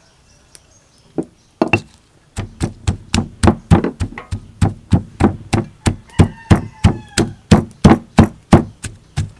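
Stone pestle pounding sliced lemongrass in a granite mortar: a few strikes about a second in, then a steady run of heavy thuds, about three a second.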